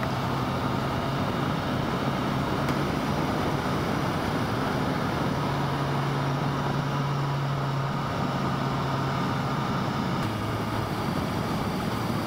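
BMW S1000XR's inline-four engine running at a steady road speed, its note holding even and shifting slightly a few times, under steady wind and road noise.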